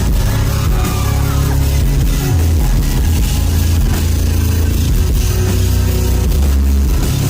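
A rock band playing: distorted electric guitar, bass and drum kit, loud and steady.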